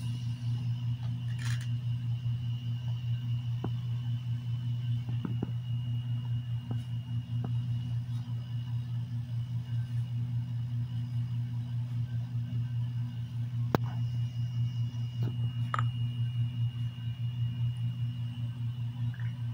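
Steady low hum of room machinery, with a faint steady high whine over it and a few faint clicks scattered through.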